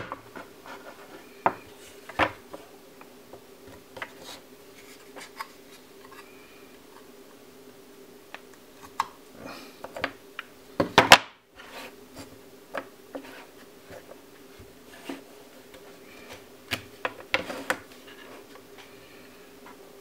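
Scattered clicks, taps and short scrapes of tools and hands working on the casing of an ADATA Nobility NH01 portable USB hard drive as it is taken apart, with a cluster of louder clicks near the middle and another late on.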